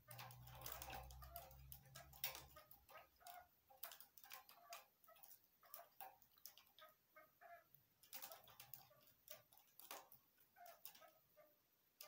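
Faint, short, soft clucking notes from caged female chukar partridges, coming irregularly, mixed with faint sharp clicks.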